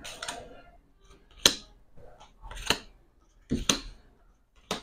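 Playing cards being dealt and snapped down onto a hard tabletop: a short rustle of cards at the start, then four sharp slaps about a second apart.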